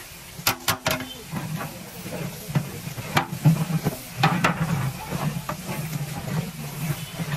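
Large batch of beef biryani cooking in a big pot: a steady sizzle and hiss, with a metal ladle knocking and scraping against the pot several times, in two clusters early and midway.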